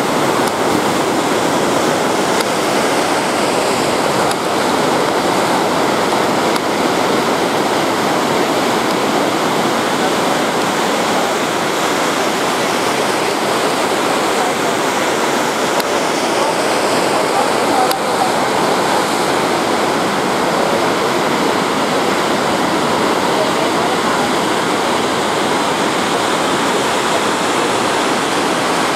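Ocean surf breaking and washing ashore: a steady, unbroken rush of water.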